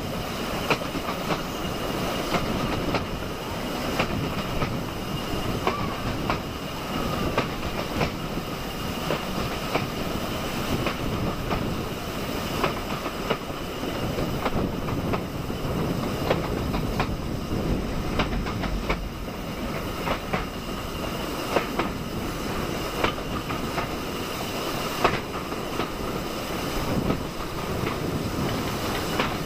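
Passenger train running along the track, heard from an open coach window: a steady rumble of the coaches with frequent irregular clicks of the wheels over rail joints.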